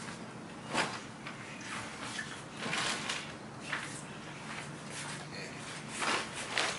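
Plastic bag rustling and crinkling in short bursts as gear is handled and pulled out of it, loudest near the end.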